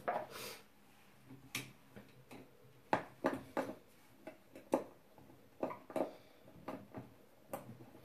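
Irregular light clicks and scrapes of a small hand screwdriver working a screw into a wooden joint, with a brief scratchy rustle at the start.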